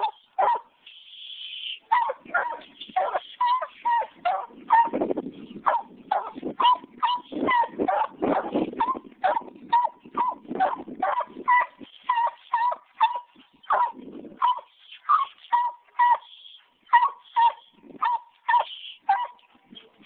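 Young Walker coonhound barking at treed game, a caged raccoon up in the tree: a steady run of short, rapid barks, about two a second.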